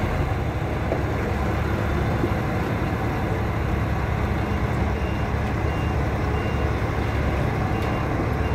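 Heavy tractor-trailer's diesel engine running at low revs as the rig reverses slowly. A reversing alarm beeps in short, repeated tones from about halfway in.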